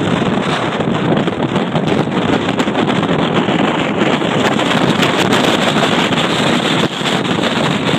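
Strong wind buffeting the microphone: a loud, steady rush of wind noise.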